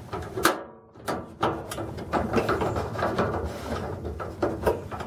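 A Carver 1800 gas space heater's igniter clicking again and again, irregularly spaced, as it is being lit.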